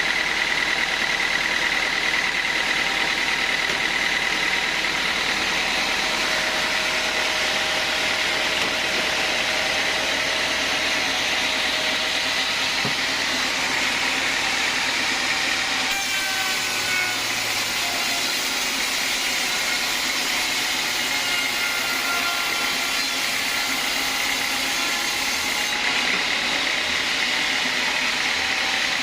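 Sawmill band saw running steadily through a teak log: an even, high hissing noise, with a thin whine in the first few seconds that fades out.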